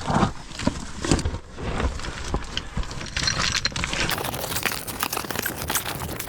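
Irregular rustling, scraping and crunching with many small clicks, the sound of a caver's clothing and gear dragging over rock while moving through a passage. A steadier hiss joins about four seconds in.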